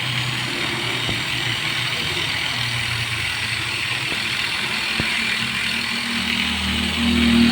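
A motor vehicle engine running steadily, with two sharp clicks, about a second in and about five seconds in. A deeper engine note swells near the end.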